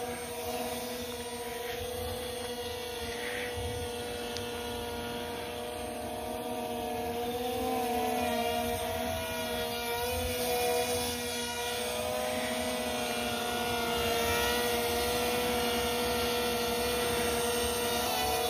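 JJRC M02 RC airplane's electric motors and propellers whining steadily while it hangs nose-up in a hover. The pitch wavers slightly with the throttle, and the sound grows a little louder in the second half.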